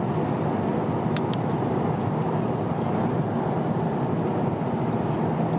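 Steady cabin noise of a jet airliner in flight, with a couple of short clicks about a second in.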